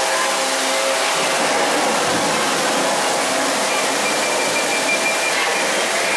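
Steady rushing noise of a theme-park dark ride's storm effects, wind and water, as a lightning effect flashes.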